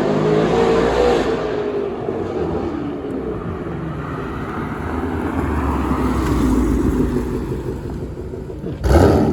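A loud V8 car engine and exhaust running and revving, the engine note rising and falling, with a sudden louder burst near the end.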